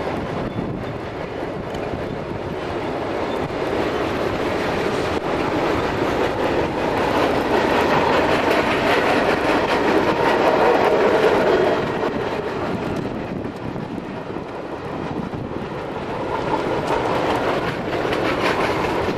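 BNSF freight train's cars rolling past, a steady rumble and rattle with rapid wheel clicks over the rails, loudest a little past the middle and then easing.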